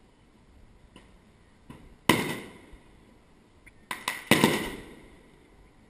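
Aerial fireworks shells bursting: a loud bang about two seconds in, then a couple of smaller cracks and a second loud bang about four seconds in, each dying away over about half a second.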